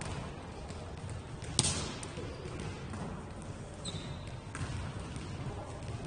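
A football struck hard once, about a second and a half in, as a single sharp thud, with a few lighter knocks and a steady low rumble of players and the pitch around it.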